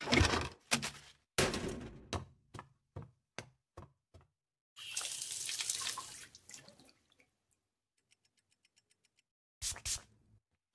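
A run of about ten knocks and thuds, each quieter than the one before, dying away over the first four seconds. Then a tap runs into a sink for about a second and a half, and near the end come short hissing puffs from a perfume atomizer's squeeze bulb.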